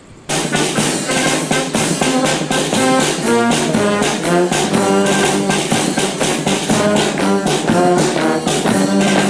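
Brass-led music, trombones and trumpets playing a quick melody over a steady beat, starting abruptly about a third of a second in.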